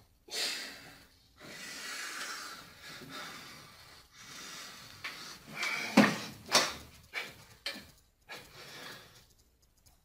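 A person breathing heavily and wheezing. About six seconds in come two loud knocks and a few softer ones, as he slumps onto a wooden table.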